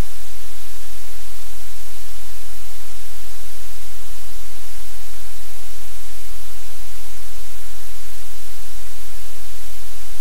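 Loud, steady hiss like static or white noise, with a low rumble underneath, unchanging throughout; no separate sounds stand out above it.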